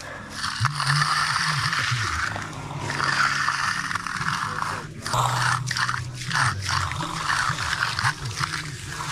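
Concrete finishing tools scraping across a wet concrete slab, in uneven strokes with short pauses, over low, wavering tones.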